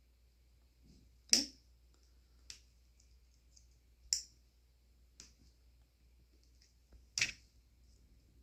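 Podiatric nail nipper snipping the edges of a toenail: about five sharp clicks a second or two apart, the ones a little over a second in, about four seconds in and about seven seconds in louder than the rest.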